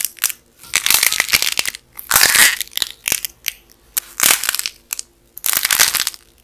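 Dried clay coating on squishy toy food cracking and crumbling as fingers squeeze and press it, in about five bursts of crisp crackling and snapping with short pauses between.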